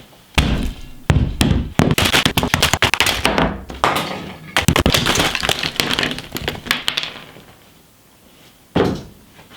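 Rummaging through workshop consumables: a dense clatter of knocks, taps and rustles as items are handled and set down, then a quieter spell and a single knock near the end.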